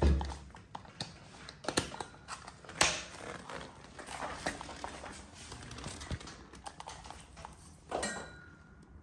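Plug pushed into a power strip socket with a thump, followed by scattered clicks, knocks and rustling as the cable is handled.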